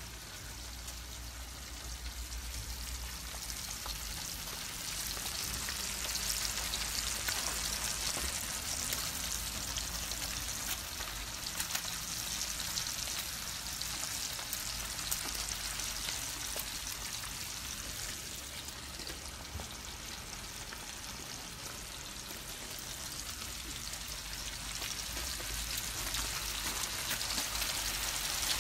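Chopped bacon sizzling in a stainless steel pan over a propane burner, a steady hiss full of fine crackles that swells for a few seconds and then eases.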